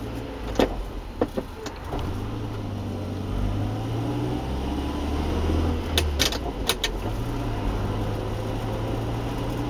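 Steady low engine and road hum inside a moving car's cabin. A few sharp clicks come about half a second in and again around six seconds in.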